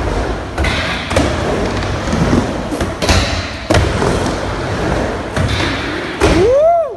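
Skateboard rolling back and forth on a wooden vert ramp: steady wheel rumble broken by several sharp knocks and thuds from the board on the ramp. Near the end a short high tone rises and falls.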